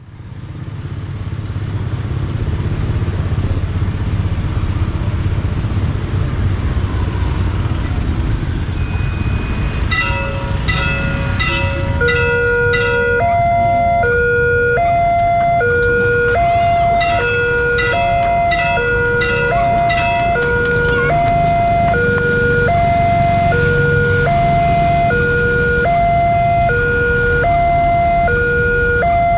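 Railway level-crossing warning siren coming on about ten seconds in, over a steady low rumble: an electronic two-tone alarm alternating between a low and a higher note, about one low-high pair every one and a half seconds, with quick ringing strikes over it at first.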